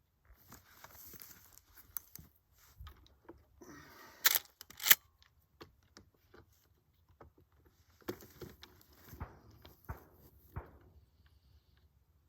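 Handling noise from a Henry Big Boy .44 Magnum lever-action rifle, then two sharp metallic clacks about half a second apart, as the lever is worked open and shut to chamber a round. More light clicks and rustling follow.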